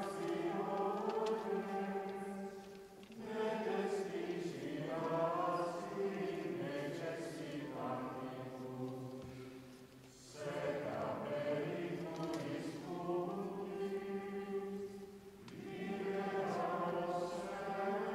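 A small congregation singing a hymn together in long sustained phrases, with three short breaks between phrases.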